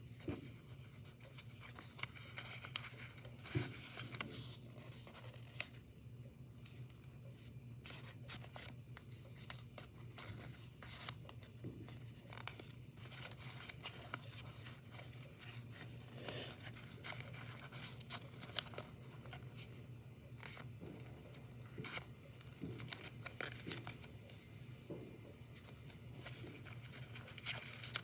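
Origami paper rustling and crinkling as it is folded and creased by hand, in many short scratchy rubs, loudest for a few seconds past the middle. A low steady hum runs underneath.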